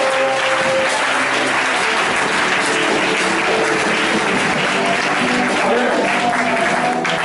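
Congregation clapping over live church music. The clapping is loudest through the middle, and the music's notes come through more clearly near the start and the end.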